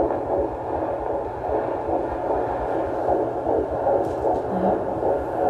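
Fetal Doppler monitor picking up an unborn baby's heartbeat: a rhythmic whooshing pulse over a steady hiss.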